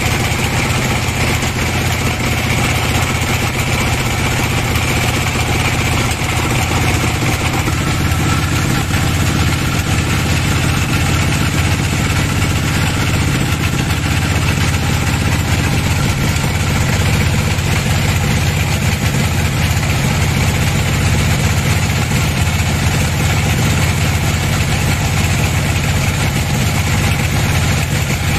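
Band sawmill's engine running steadily: a loud, even drone that holds the same speed throughout.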